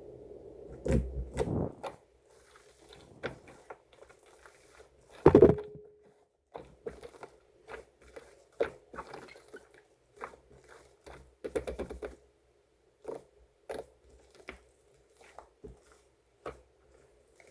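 Slime being squished and poked by hand, making irregular wet clicks, crunches and pops. The loudest pop comes about five seconds in.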